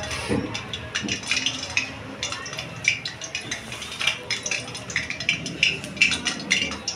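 Irregular light clicks, taps and crackles of kitchen work: hands handling spring roll wrappers and a plate on a plastic chopping board by a gas stove, about two or three clicks a second.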